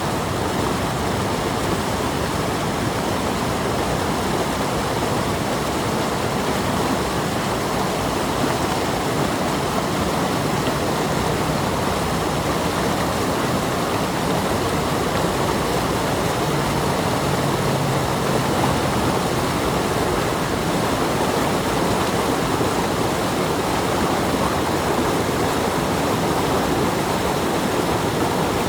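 Stream water flowing and splashing in a steady rush.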